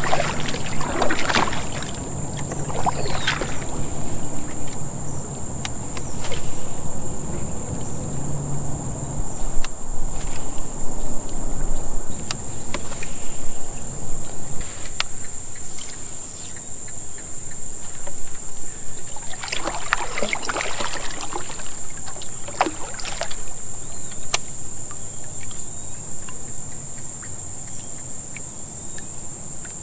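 Steady high-pitched insect chorus, with splashy water swishes from a kayak on the water about a second in and again around twenty seconds in.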